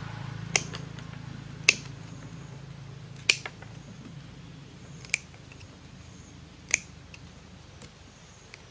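Wire cutters snipping the wire ties on a bamboo fish trap: five sharp snips a second or two apart, over a low steady hum.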